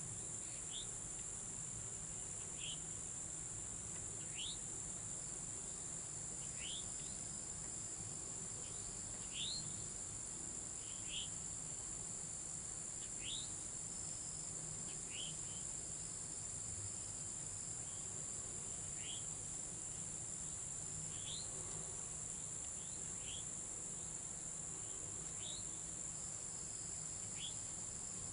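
Steady high-pitched drone of crickets and other insects in a late-summer chorus, with short high chirps repeating every second or two.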